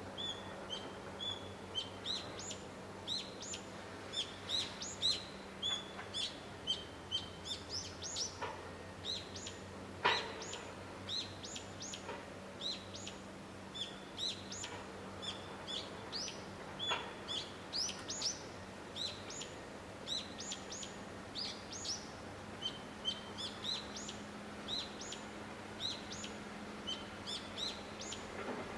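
Small birds chirping over and over, short quick notes that drop sharply in pitch, several a second, with a few louder chirps now and then.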